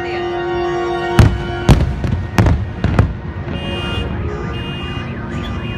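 Fireworks shells bursting: four loud bangs roughly half a second apart, starting a little over a second in, as a held chord of the show music fades. After them a wailing tone rises and falls over and over.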